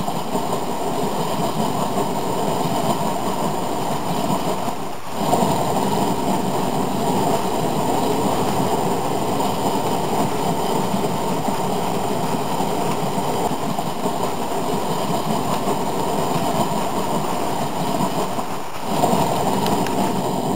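HO-scale model coal hopper cars rolling along the track: a steady rolling rumble, dipping briefly about five seconds in and again near the end.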